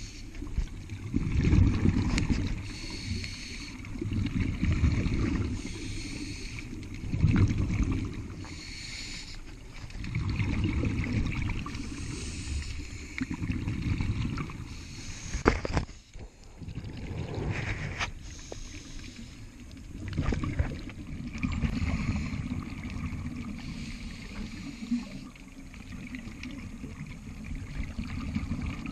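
Scuba diver breathing through a regulator underwater: exhaled bubbles rumble and gurgle in surges every few seconds, with fainter hissing between them. A few sharp clicks about halfway through.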